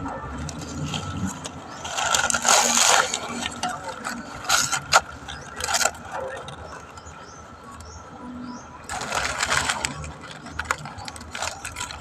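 Dry coconut-leaf midribs (tingting) scraping and rustling as they are worked by hand, in three bursts, with a few sharp snaps about five seconds in.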